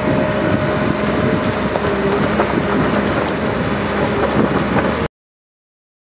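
Hyundai R320LC-9 crawler excavator working, its diesel engine and hydraulics running steadily under load, with a few light knocks of earth and stone. The sound cuts off abruptly about five seconds in.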